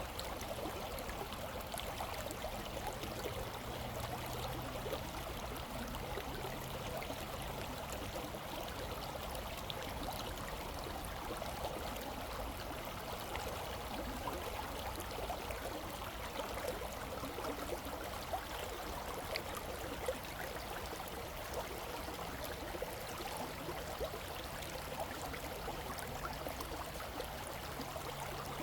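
Creek water flowing steadily, a constant babbling rush with many small gurgles and splashes.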